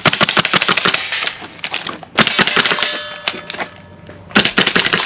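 VFC HK416A5 gas blowback airsoft rifle firing three rapid strings of sharp clacking shots, with a metallic ring hanging on after the middle string.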